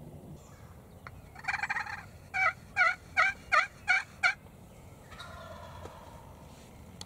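Wild turkey calling: a short rattling burst, then a run of six loud, short, evenly spaced notes at about two and a half a second.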